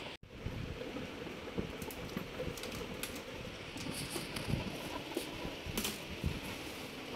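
Scattered light clicks and taps of plastic laptop casing and parts being handled during disassembly, over a steady background hiss.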